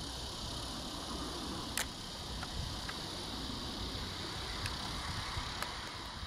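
Steady outdoor evening ambience: a constant high hiss over a low rumble, with a few faint clicks.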